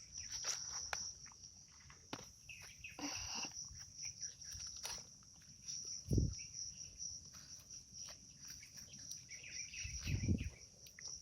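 Insects trilling steadily, with short bird chirps now and then and a couple of low thumps about six and ten seconds in.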